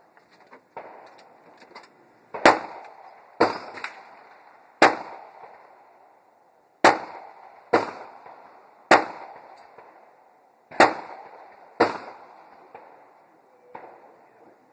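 Gunshots, about ten of them, roughly one to two seconds apart. Some are louder than others, and each trails off in a short echo.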